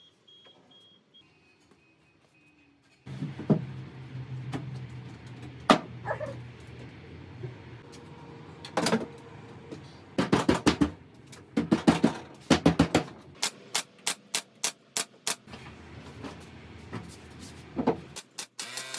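A brad nailer firing a series of sharp shots, some singly and some in quick runs, as plywood side panels are nailed to the cart's top and base. A low steady hum runs underneath.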